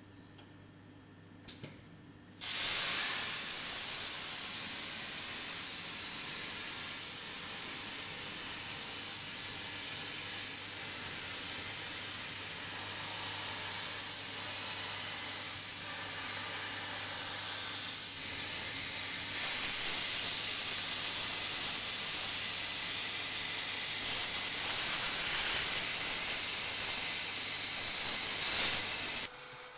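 CNC plasma cutter torch cutting 10 mm steel plate: a loud, steady hiss with a thin high whine. The hiss starts abruptly about two and a half seconds in, after two short clicks, and cuts off suddenly just before the end.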